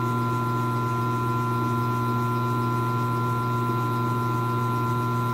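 Milling machine's motor running steadily with a steady low hum and several fixed higher tones. The spindle is turning a 3/4-inch drill bit unloaded, not yet cutting into the washer.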